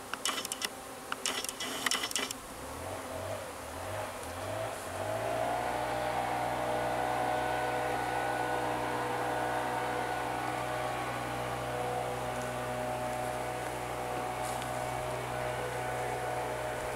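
A few sharp clicks, then a motor starts up about three seconds in, wavers in pitch briefly, and settles into a steady low hum.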